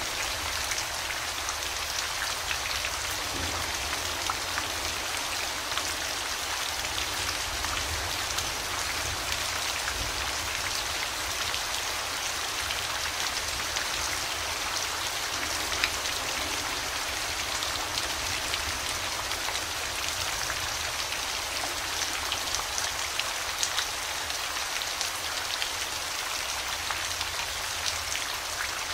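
Steady rain falling, an even hiss with scattered sharper taps of individual drops landing close by.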